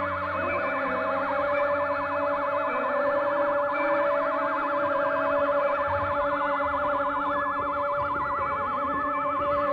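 Electronic music: a synthesizer tone warbling rapidly and evenly up and down like a siren, over steady held drone tones.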